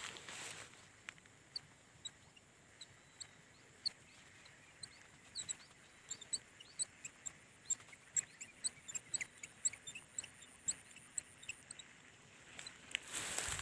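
Small birds chirping: many short, high chirps at irregular intervals, becoming busier after the first few seconds. A rushing, rustling noise rises near the end.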